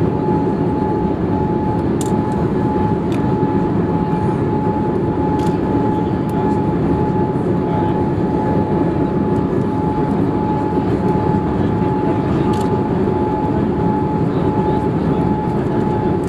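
Steady cabin noise inside a Boeing 787-8 Dreamliner on approach: a constant low rush of airflow and engine noise, with a thin steady whine above it.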